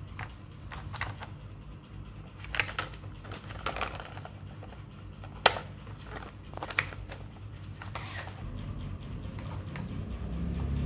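Glass marbles rolling down a wooden zigzag marble run and clicking against each other and the wood, with scattered sharp clacks. The loudest clack comes about five and a half seconds in, and a low rolling rumble builds near the end.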